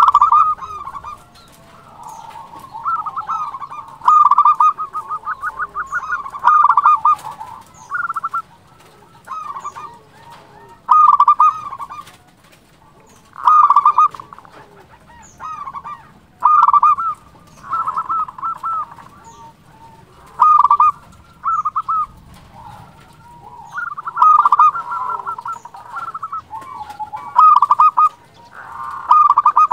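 Local Indonesian zebra dove (perkutut lokal) singing its cooing song: loud phrases of quick, pulsed coos, repeated every two to three seconds with short pauses between.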